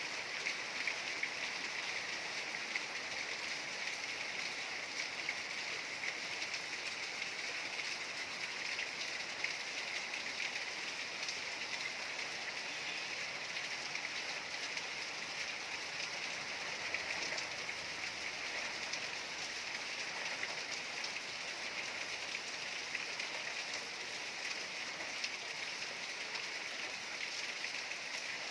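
Steady rainfall: a dense, even hiss of drops, with single drops striking close by now and then.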